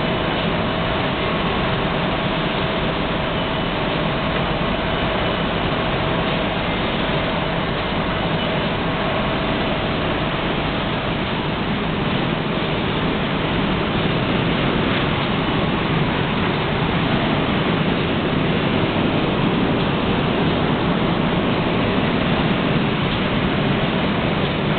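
Homag DEP double-end profiler with sanding units running: a steady machine noise with a few faint steady tones, growing slightly louder about halfway through.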